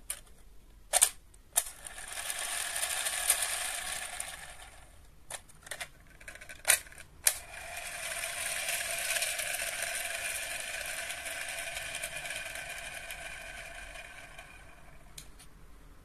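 Plastic shuriken spinner of a DX Ninja Raise Buckle toy being spun twice. Each spin starts with a few sharp clicks, then whirs as it turns and fades as it slows; the first whir lasts about three seconds and the second about seven.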